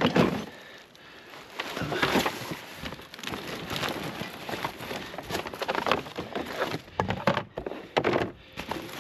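Rummaging through a pile of kerbside junk: cardboard, plastic bags and hard plastic items being shoved and shifted. The result is irregular rustling, scraping and clunks, loudest just after the start and about two seconds in.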